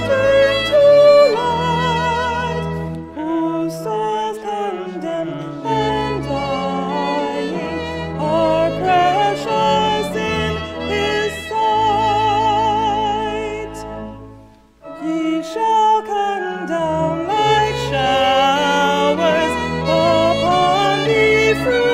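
A hymn sung by a solo voice with wide vibrato, accompanied by violin and organ, with the organ holding long low notes underneath. The music drops away briefly about two-thirds of the way through, between phrases, then resumes.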